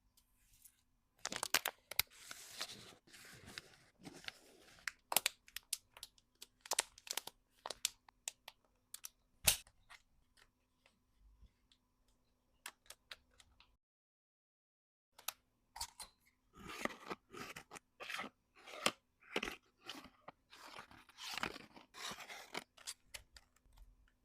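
Packaging materials being handled close up: crinkling plastic and paper, sharp clicks and tearing sounds in irregular bursts. The sound cuts out completely for about a second midway.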